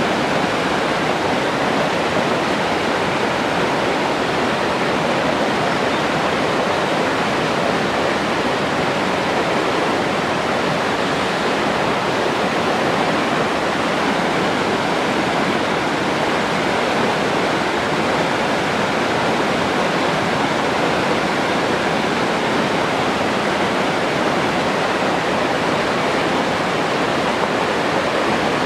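Forest stream flowing: a steady, even rush of water over rocks.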